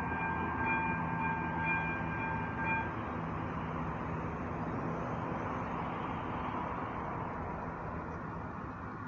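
Level-crossing warning bell, an AŽD ZV-02 electronic bell, ringing in a steady tone and cutting off about three seconds in, as the barriers come down. Under it a train's low rumble and rushing noise swells and slowly fades.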